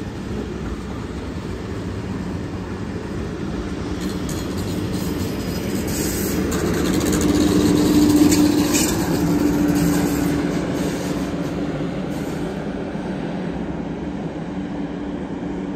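A train moving along the tracks, growing louder to a peak about halfway through and then easing off, with a steady hum setting in near the middle and a few light clicks around the loudest moment.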